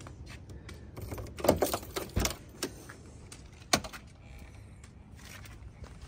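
A 1988 Porsche 911's driver door being unlatched and swung open: a short cluster of clicks and knocks about a second and a half in, then a single sharp click a little later.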